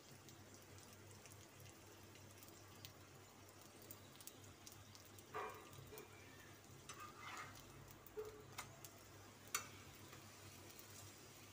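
Mostly near silence over a low steady hum, with a few faint clinks and scrapes of a metal spatula against the griddle and a nearby steel pot about halfway through, and one sharp click near the end as the paratha is turned.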